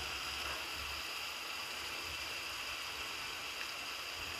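Spice masala sizzling and bubbling steadily in oil in a pot. The paste has been fried down until the oil floats up on top, the point at which it is ready for the meat.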